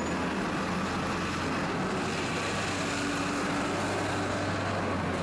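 Steady city traffic noise: an even wash of passing vehicles with a low, constant engine hum underneath.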